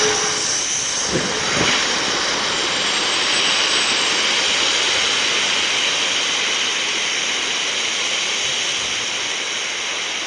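High-pressure gas rushing out of a gas cylinder whose valve has broken off, with no excess flow valve to limit the flow: a loud, steady hiss that cuts off suddenly at the end.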